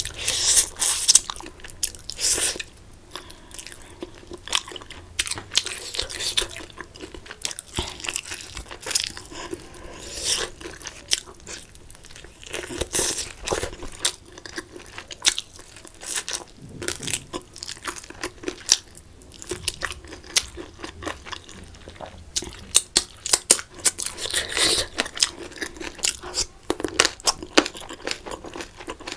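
A person chewing and biting crunchy food close to the microphone: many irregular crunches and wet chewing sounds, mukbang style.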